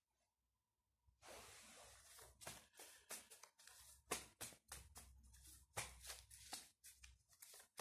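A deck of tarot cards shuffled by hand: a run of soft, quick clicks and rustles of the cards slipping over each other, starting about a second in.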